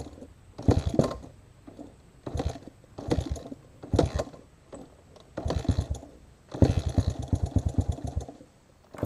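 Small dirt bike being kick-started again and again, about six kicks. At each kick the engine turns over in a quick run of chuffs and does not catch; the fuel tap is shut, so no fuel reaches the carburettor. The last kick spins it over for longest.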